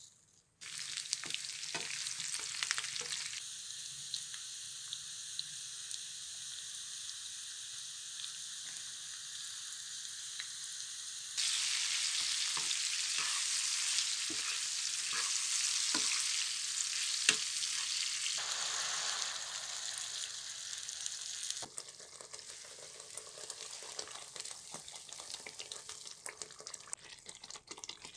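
Onions, spices and tomatoes frying in hot oil in a pan, a steady sizzle with scattered clicks and scrapes of a spatula stirring against the pan. The sizzle starts abruptly about half a second in, gets louder around 11 seconds and quieter again past 21 seconds.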